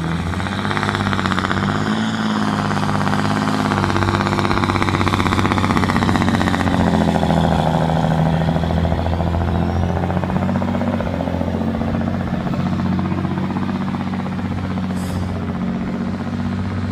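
John Deere 8530's six-cylinder diesel engine running at full load as the tractor pulls a weight-transfer sled in a tractor pull. It comes up sharply at the start, is loudest as the tractor passes about halfway through, then slowly fades as it moves away down the track.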